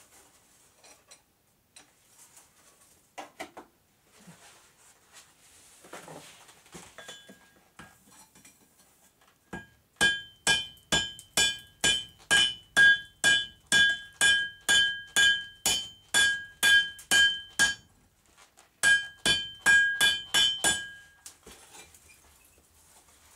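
Hand hammer striking a red-hot railroad spike on an anvil, about three blows a second, each with a clear metallic ring from the anvil. A steady run of about eight seconds, a brief pause, then a shorter run of a few more blows; faint clicks before the hammering starts.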